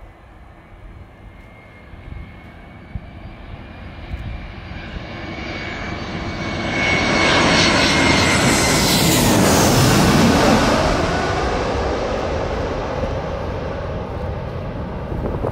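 Twin-engine jet airliner on landing approach with its gear down, passing low overhead: the engine noise builds to a peak about eight to ten seconds in, with a whine that falls in pitch as it goes by, then eases off.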